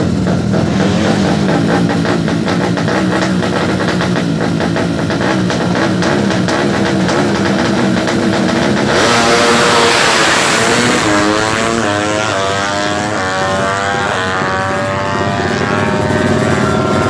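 Tuned 200cc four-stroke underbone drag bike engines running and revving; about nine seconds in, a bike launches hard and accelerates, its pitch climbing and dropping back again and again as it shifts up through the gears.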